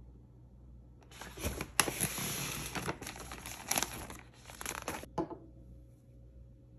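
Paper shopping bag rustling and crinkling as it is handled and opened, with several sharp crackles; the rustling starts about a second in and stops about five seconds in.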